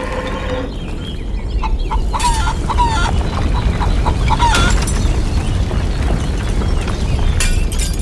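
Chickens clucking in a flurry of short calls over a continuous deep rumble as a miniature brick shed collapses. Sharp crashes of falling bricks come in the middle and again near the end.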